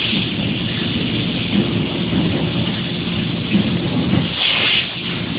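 Robot-arm fiber laser cutting machine at work: a steady, rough low rumble with a crackly texture, and a brief louder hiss about four and a half seconds in.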